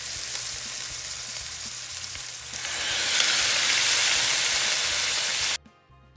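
Strips of sirloin steak sizzling in hot coconut oil and bacon grease in a frying pan as they are added, the hiss growing louder about halfway through, then cutting off abruptly near the end.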